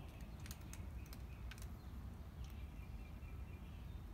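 A cat eating from a dish: a few faint crunching clicks in the first couple of seconds, over a steady low outdoor rumble, with faint high chirps in the second half.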